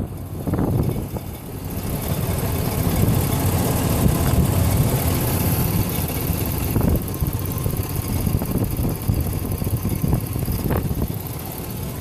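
A 2004 Cadillac Escalade's 6.0 Vortec V8 idling warm, with an accessory-drive clatter over the steady engine rumble. The clatter comes from a worn idler pulley and belt tensioner.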